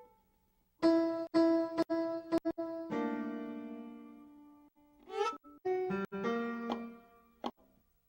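Background piano music: chords struck and left to ring and fade, with a few quicker notes, broken by short silences between phrases.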